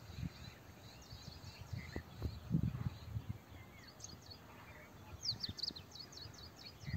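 Small birds chirping, with a quick run of short high chirps about two-thirds of the way in, over an uneven low rumble of outdoor noise.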